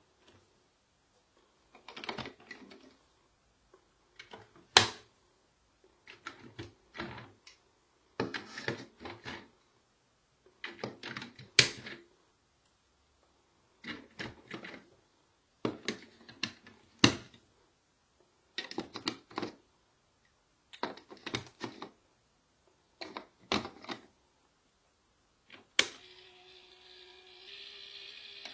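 Hard plastic toy pieces clicking and rattling in short bursts every second or two, with silent gaps between. A steady hum starts near the end.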